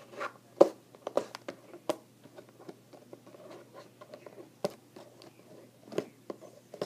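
A cutting tool and hands working at a sealed cardboard trading-card box that will not cut open: irregular clicks, taps and scrapes, the sharpest about half a second in.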